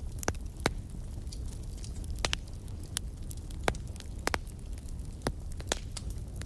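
Wood fire burning in a fireplace, crackling with irregular sharp pops, about ten of them, over a steady low rumble of the flames.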